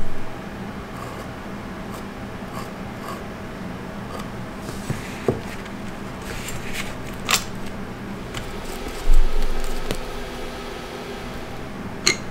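Small metal clicks and clinks of hand work with a screw, washer and steel angle-iron fence on an electric hand planer's base, with one louder, deeper knock about nine seconds in.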